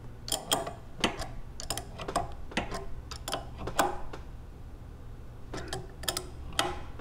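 Irregular sharp metallic clicks and taps as a wrench and hands work the brass unloader valve and its fittings while tightening it onto the pressure-washer pump, with a pause about two-thirds through, over a low steady hum.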